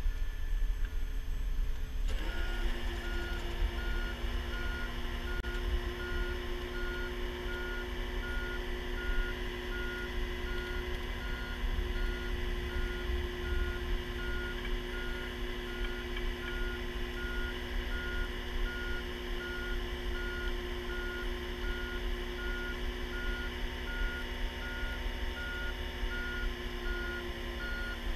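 Vehicle backup alarm beeping steadily over a heavy truck's running engine. The engine settles into a steady hum about two seconds in.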